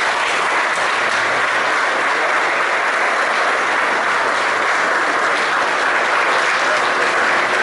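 Audience applauding loudly in a large hall, a dense steady clapping that keeps up without a break.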